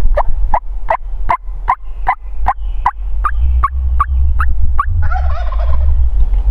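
Wild turkeys on the roost: a run of about a dozen sharp yelps, evenly spaced at roughly two and a half a second, then a Merriam's gobbler gobbling about five seconds in. A low rumble runs underneath.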